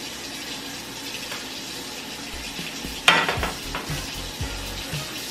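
Butter sizzling in a frying pan, then a loud metal clatter about three seconds in as the pan is set down on the glass-top electric stove, followed by soft low thumps about every half second.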